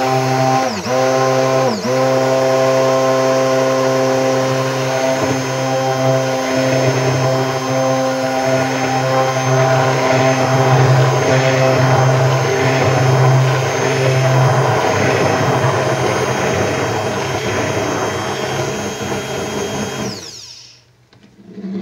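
Immersion stick blender running steadily in a bowl of soap batter, blending the oils into a thick, creamy emulsion. The motor dips briefly twice near the start and cuts off near the end.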